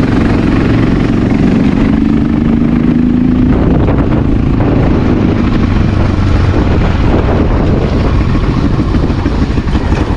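Honda XR650L single-cylinder four-stroke engine running while the bike is ridden, its pitch rising over the first few seconds and then easing off. Near the end the engine note turns into an uneven pulsing as it slows toward idle.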